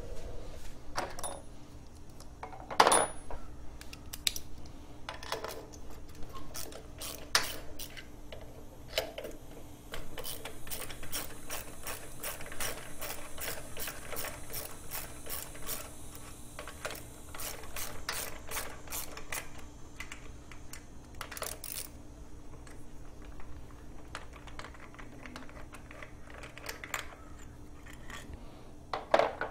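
Socket ratchet clicking in quick runs as the carburetor's mounting bolts are undone on a Briggs & Stratton riding-mower engine, with scattered clinks of tools, over a steady low hum.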